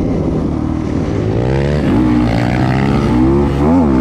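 Dirt bike engine running under way, its revs rising and falling repeatedly as the rider rides on, with a quick rev up and drop near the end.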